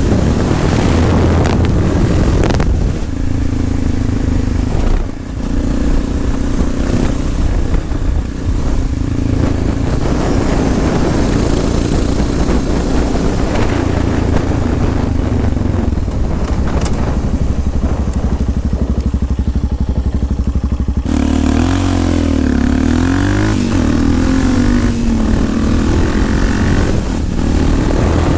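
Single-cylinder four-stroke engine of a 2004 Yamaha XT660R with a Leovince exhaust, running on the road under way. The throttle dips briefly about five and eight seconds in. Over the last several seconds the engine pitch swings up and down repeatedly.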